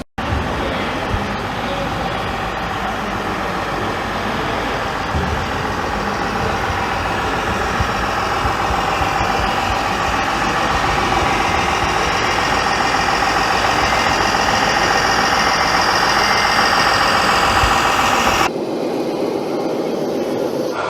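A truck engine running, its pitch climbing slowly as if speeding up. It cuts off abruptly about two seconds before the end, and a quieter engine sound follows.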